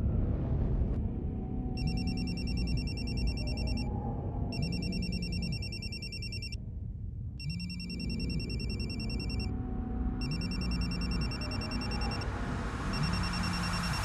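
Panasonic cordless phone ringing with an electronic trill in bursts of about two seconds, separated by short gaps. The ringing starts about two seconds in, comes four times, and a fifth ring begins near the end, over a steady low rumble.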